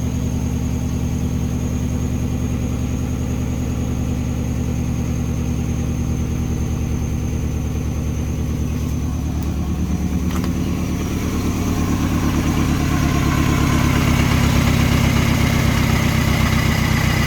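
Mini Cooper four-cylinder petrol engine idling roughly with a misfire on one cylinder, enough to make it vibrate; it picks up a little and gets slightly louder about two-thirds of the way through.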